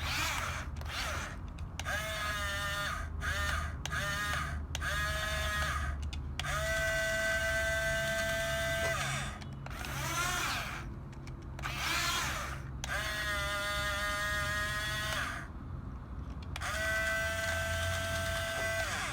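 Electric drive motors of a Huina 6-channel RC bulldozer whining in repeated bursts as the controls are worked. Each burst rises quickly to a steady high pitch and stops after half a second to a couple of seconds, with a steady low hum underneath.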